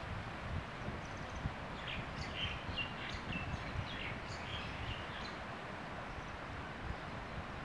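Wind buffeting the microphone, with a run of faint, short, high-pitched bird chirps from about two to five seconds in.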